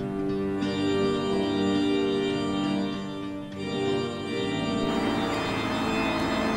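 Background music of held notes in slowly changing chords. About five seconds in, a steady rushing noise joins underneath.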